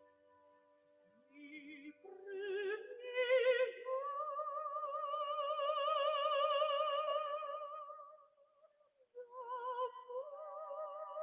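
Soprano singing opera with a wide vibrato. A short rising phrase climbs into a long held note, then after a brief pause around nine seconds in a new phrase begins over a sustained accompaniment.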